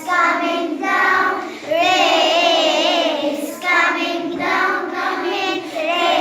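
A class of third-grade children singing together in short phrases.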